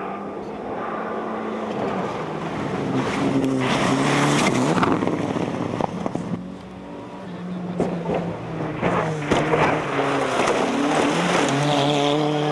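Rally car engine revving hard, its pitch climbing and dropping with each gear change.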